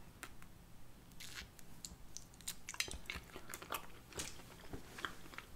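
A person biting and chewing crunchy food close to the microphone: scattered small crunches and mouth clicks.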